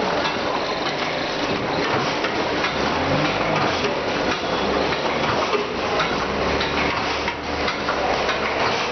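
Continuous creaking and clattering with rapid, irregular clicks and knocks.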